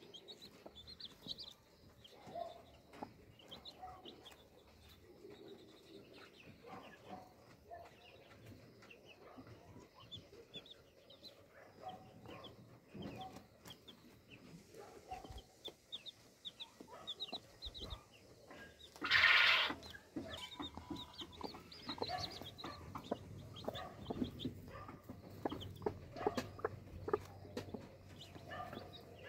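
Newly hatched chicks peeping repeatedly and a broody hen clucking low in the nest, with one louder noisy burst lasting about a second around two-thirds of the way through.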